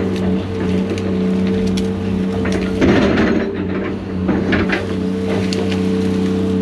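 Diesel engine of a John Deere 250G LCR excavator running steadily, with wood cracking and snapping as brush and trees are broken; a louder crash comes about three seconds in.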